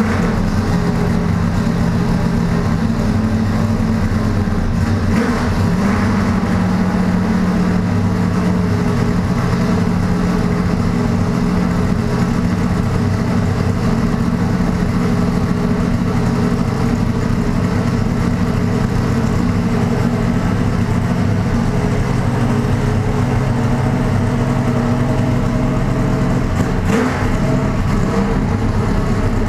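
Race car engine idling steadily with a deep, even note; the idle steps up slightly about six seconds in and holds there.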